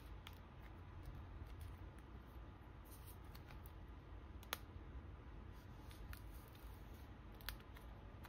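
Quiet handling of plastic photocard sleeves and binder pocket pages: soft rustling with small clicks as cards are slid into sleeves, and a sharp tick about halfway through and another near the end. A low, steady rumble runs underneath.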